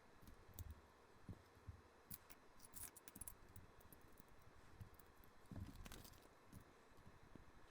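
Faint clicks and small rattles of LEGO plastic pieces being handled and pressed together, in two short clusters about two seconds in and near six seconds.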